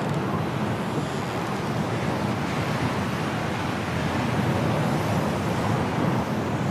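Strong snowstorm wind blowing through bare treetops, a steady rushing noise that swells a little about four seconds in.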